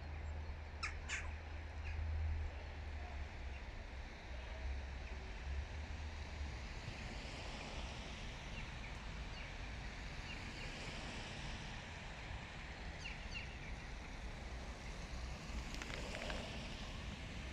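Hooded crow calling: a few short, sharp calls early and midway, then a fuller caw near the end. A steady low rumble runs underneath.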